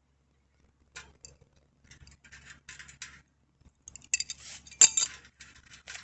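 Metal tools and bicycle hardware clinking and rattling in short, scattered clicks, with one sharp, louder clink a little before five seconds in.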